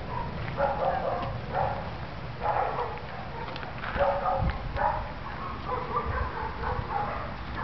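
Dogs whimpering and yipping in short repeated calls, about once or twice a second, while they crowd in to be petted.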